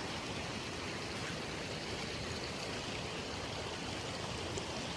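Water of a mountain waterfall rushing, a steady even wash of sound.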